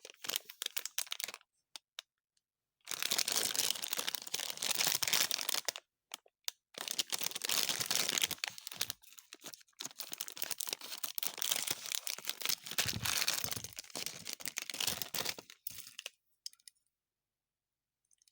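Blind-bag plastic packaging of a Hot Wheels Mystery Models die-cast car being torn open and crinkled by hand. A few short rustles come first, then long stretches of crinkling and tearing that stop about two seconds before the end.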